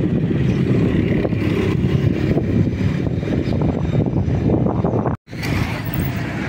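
Steady low rumble of road traffic mixed with wind buffeting the microphone. It drops out for an instant about five seconds in, then resumes.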